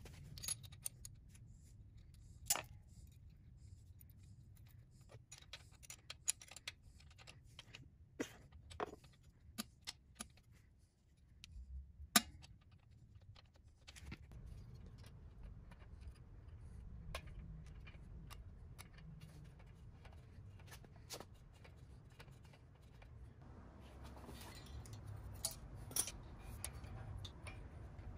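Scattered small metallic clicks and taps of tools and parts being handled on a vintage motorcycle engine, over a faint low hum.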